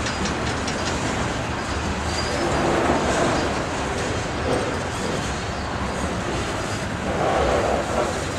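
Freight train rolling past, its cars' wheels running on the rails in a steady, continuous rumble.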